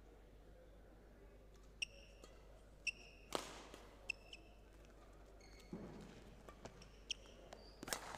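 Badminton rally: several sharp racket strikes on the shuttlecock, echoing in a large hall, with short high squeaks of shoes on the court floor between them and a dull thud of footwork about six seconds in.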